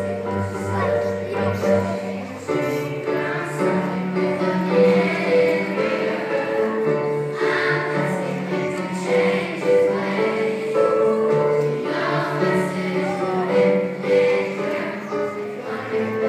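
A group of children singing together as a choir, holding long notes.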